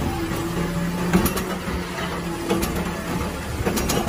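Automated side-loading garbage truck with a Pac-Tech body, engine and hydraulics running as its mechanical arm lifts and tips a wheeled trash cart over the hopper. There are sharp mechanical clanks about a second in and again near the end.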